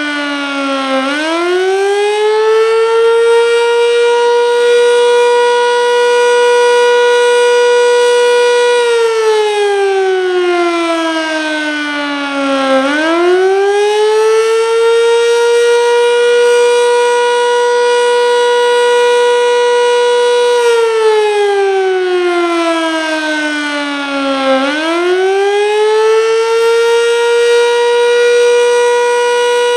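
Sentry 7V8-B outdoor warning siren sounding its Attack signal: a slow wail that climbs to a high pitch, holds it for several seconds, then sweeps down, repeating about every twelve seconds.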